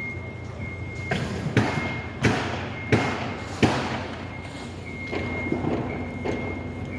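Construction-site work: five heavy thuds, about two-thirds of a second apart, over a steady high whine and a low rumble of machinery.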